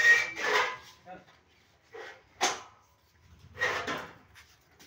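Indistinct voices in short bursts, with a single sharp knock about halfway through.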